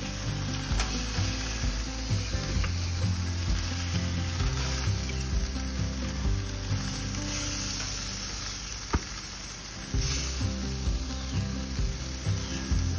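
Chicken breasts sizzling on grill grates as they are lifted off with tongs, a steady hiss, with a single sharp click about nine seconds in.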